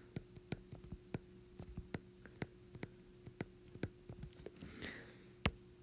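Faint, irregular taps and clicks of a stylus on a tablet's glass screen as handwriting is written, over a faint steady hum.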